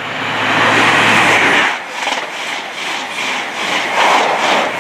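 An InterCity 125 High Speed Train passing at speed: the leading Class 43 power car's diesel engine sweeps past with a steady low engine note, then the Mark 3 coaches follow with a fast, rhythmic clickety-clack of wheels over the rail joints.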